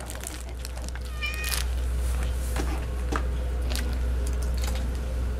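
Domestic cats at a feeding spot, with one short meow about a second in. Underneath is a steady low rumble and scattered light clicks and scuffs.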